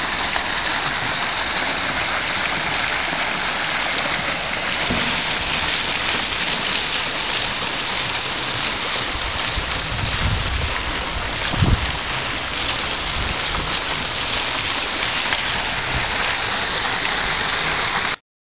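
Fountain jets splashing into a shallow pool: a steady rushing hiss of falling water that cuts off suddenly near the end.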